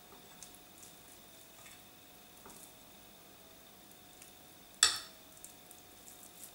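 Soft, faint handling of a moist meat mixture with a few small clicks of cutlery, then one sharp metallic clink of a metal spoon against a bowl about three-quarters of the way through.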